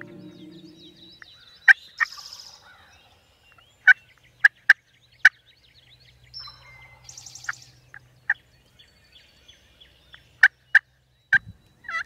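Turkey calls: about a dozen short, sharp cluck-like notes, spaced irregularly, with songbirds twittering faintly behind them.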